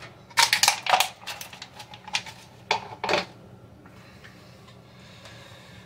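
Clear plastic water bottle being handled, crinkling and clicking in a quick flurry for about a second, with a couple more sharp clicks about three seconds in.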